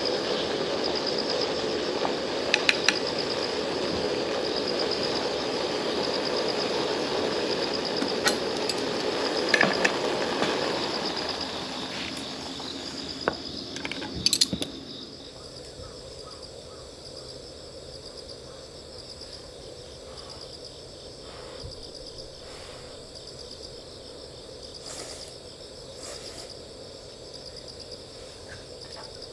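Crickets chirping steadily in a high, pulsing drone. Over them, for the first half, a broad rushing noise with scattered sharp clicks that fades away around the middle.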